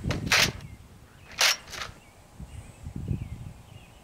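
Short handling noises from an air rifle being readied between shots: three brief scraping clacks, the loudest about a third of a second in and two close together about one and a half seconds in, with soft low bumps after.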